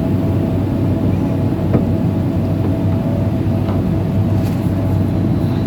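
Amphibious pontoon excavator's diesel engine running steadily with a deep hum as the machine tracks through mud, with a few short clanks.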